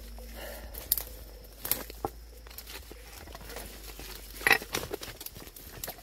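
Footsteps through dry leaf litter and twigs, with irregular crackling and snapping; the loudest crackle comes about four and a half seconds in.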